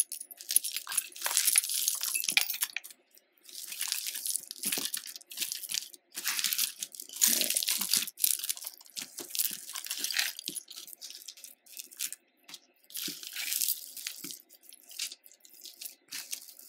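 A pile of costume jewelry (metal chains, faux pearls and beads) clinking and rattling as a hand rummages through it, in a run of short bursts with brief pauses.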